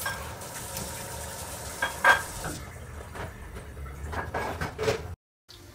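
Light kitchen clatter: a few knocks and clinks of dishes, the sharpest about two seconds in, over a faint steady hiss of oil in a frying pan. The sound drops out completely for a moment near the end.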